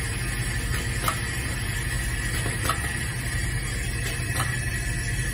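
Vibratory bowl feeder and its linear feed track running with a steady low hum and a thin steady high tone, with three sharp clicks, about a second and a half apart, from the feeder mechanism.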